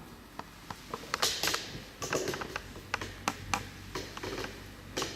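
Irregular small clicks, knocks and brief scrapes of the laser machine's handpiece being handled and fitted into place on the machine.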